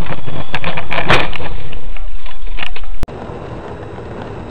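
Car dashcam audio of a car driving, with a string of sharp knocks and rattles over loud road noise, the strongest about a second in. About three seconds in it cuts abruptly to a quieter, steady hum of another car driving.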